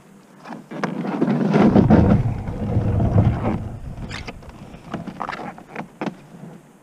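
Plastic kayak hull scraping and rubbing for about three seconds as it is hauled up off the ramp, then a few sharp knocks and bumps as it is hoisted onto the shoulder.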